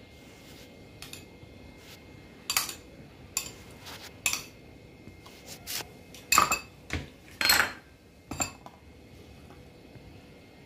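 Metal spoon clinking and scraping against glass as soaked chia seeds are spooned out of a glass bowl, about nine sharp clinks at uneven intervals, the loudest a little past the middle.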